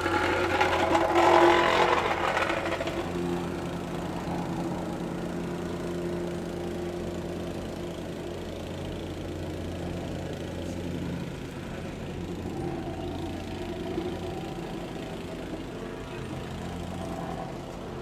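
Vibrating plate compactor running with a steady engine drone, loudest in the first three seconds, then settling to an even level.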